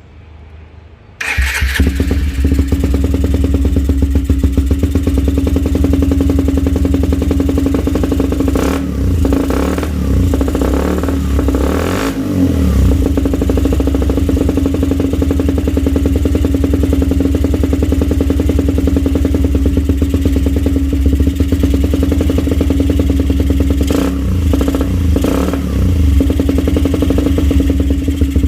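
Motorcycle with an aftermarket "standard bass" racing exhaust starting about a second in, then idling with a deep, steady, pulsing exhaust note. The throttle is blipped a few times in the middle and again near the end.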